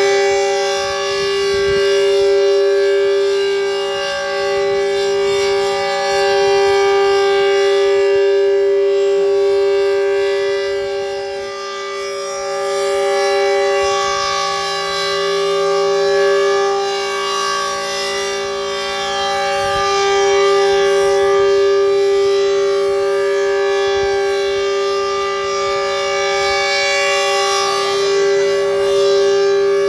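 Super Sirex outdoor warning siren sounding a loud steady tone at one unchanging pitch, rich in overtones. Its loudness slowly swells and fades every several seconds.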